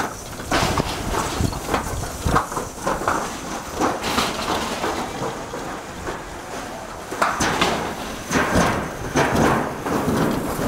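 Toboggan sled running down a metal chute track, a continuous rumble and clatter with many irregular knocks.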